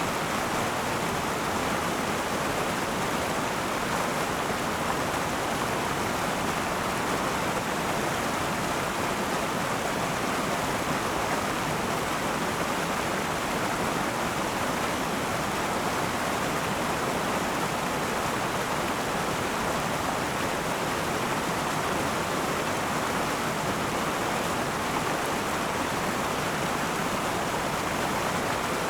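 River water flowing and rushing over stones, a steady even wash of water noise.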